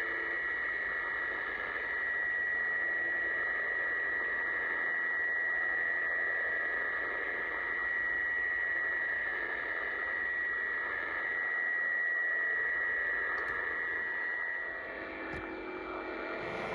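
Shortwave radio tuned to UVB-76, 'The Buzzer', on 4625 kHz: a steady high tone over static, one of the station's unusual noises. About 15 seconds in, the tone stops and gives way to lower tones and a couple of clicks.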